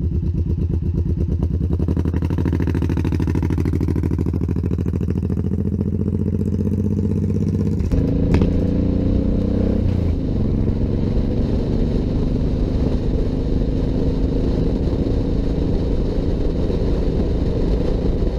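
Suzuki Boulevard cruiser motorcycle's engine running steadily at the petrol station, its note rising slightly. After a sudden change about eight seconds in, it is heard riding along the road with a rushing noise above it, the engine note dropping about two seconds later.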